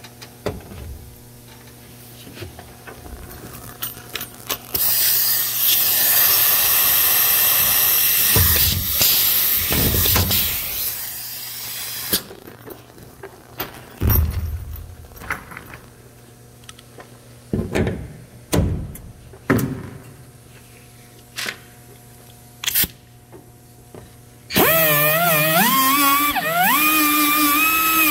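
A power tool runs loudly for about seven seconds with a strong hiss, then a handful of separate sharp knocks follow. Music with a sliding, guitar-like tone starts near the end.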